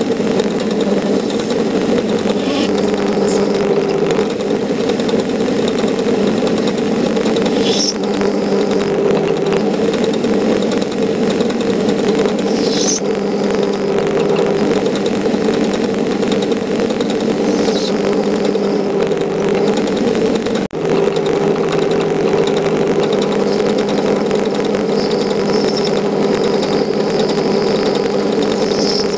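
Metal lathe running steadily under cut, turning a steel plate, with a steady hum. Short high chirps come every five seconds or so, and the sound dips briefly about two-thirds of the way through.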